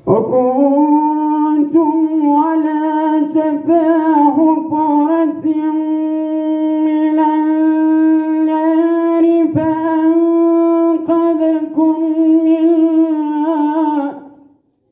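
Quran recitation: one reciter's voice chanting in long, ornamented melodic phrases, holding notes at a steady pitch, with brief breaks for breath. The voice stops near the end.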